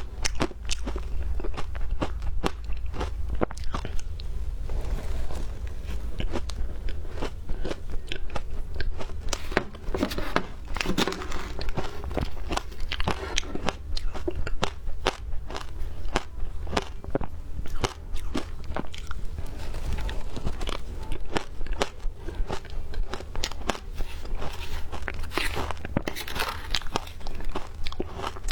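Frozen ice being bitten and chewed close to the microphone: dense, irregular crunching and crackling, several sharp cracks a second, over a steady low hum.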